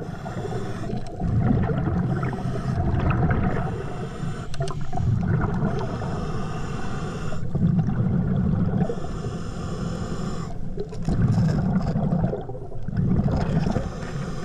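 Scuba-style breathing heard underwater through a Brownie's tankless hookah regulator: exhaled air bubbling out of the regulator in repeated low gurgling surges about every two to three seconds, with fainter hiss between them.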